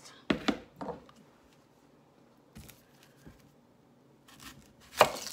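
A kitchen knife and a red onion knocking on a wooden cutting board: a couple of sharp knocks about half a second in, a few faint ticks, then one sharp knock near the end, the loudest, as the blade cuts down through the onion onto the board.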